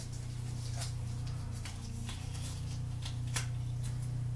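A steady low hum with a few faint clicks and rustles of hands handling small objects, including a light tap about three seconds in.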